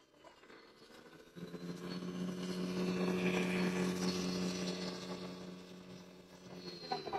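Radio-controlled wheel loader driving past with a full bucket: a steady, even-pitched hum from its drive that starts about a second and a half in, swells as it comes close and fades as it moves away.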